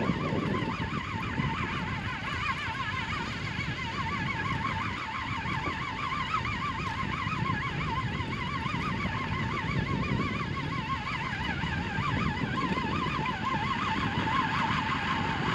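Fishing reel being wound in steadily, giving a whirring tone that wavers rapidly up and down, over a low rumbling noise. The rig coming up carries weed rather than a fish.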